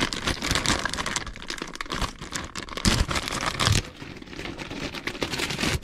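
Plastic courier mailer bag being torn open and crinkled by hand: an irregular crackling rustle, louder about half a second in and again around three seconds in.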